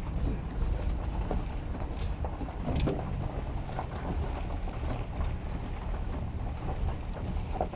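A vehicle driving slowly over a bumpy road, a steady low rumble with scattered knocks and rattles.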